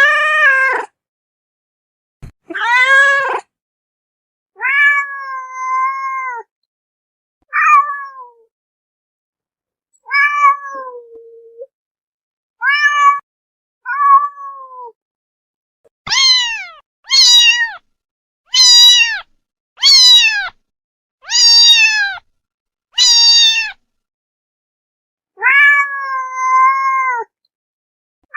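Domestic cats meowing: a string of separate meows, each rising then falling in pitch, with short silences between. Past the middle come six loud meows in quick succession, about one every one and a half seconds.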